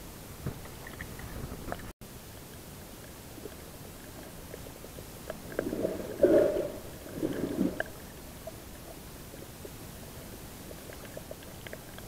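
Muffled water noise from a camera held just below the sea surface: a steady low wash, with two short muffled bursts around the middle.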